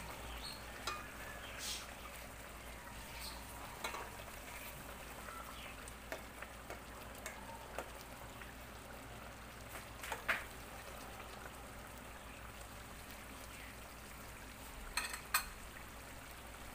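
Fish simmering in coconut milk in a stainless pan on a portable gas stove, a faint steady bubbling hiss. Scattered clinks of metal utensils against the pan and a plate break in, the sharpest about ten seconds in and twice near the end.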